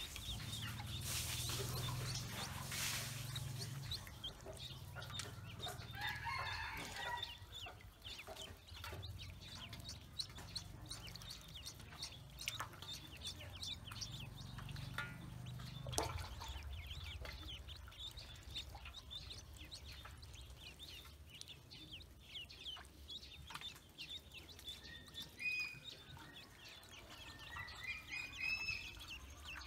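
Ducklings peeping, many short high chirps, as they paddle about in a basin of water; the chirps grow busier near the end.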